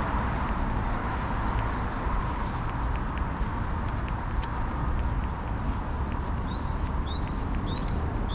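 Steady hum of distant road traffic, with a small bird calling near the end: four short chirps, each sweeping upward, about half a second apart.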